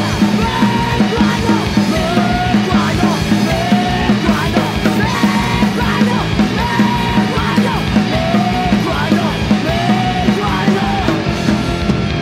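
Street punk song: distorted electric guitars, bass and a driving, steady drum beat, with a yelled vocal line.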